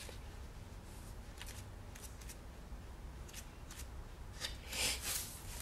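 Quiet paper-crafting handling: a few short, dry rustles and scrapes of paper and sticker sheets, with a longer rustle about five seconds in, over a low steady hum.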